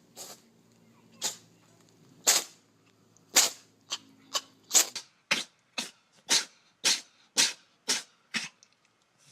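A cat sneezing again and again, about fourteen short, sharp sneezes. They come roughly once a second at first and about twice a second in the second half.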